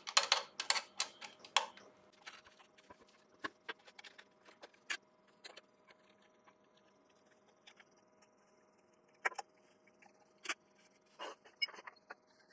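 Scattered sharp clicks, knocks and metallic clinks of a big bowl blank being taken off and remounted on a wood lathe's chuck, busiest in the first couple of seconds and again near the end, over a faint steady hum.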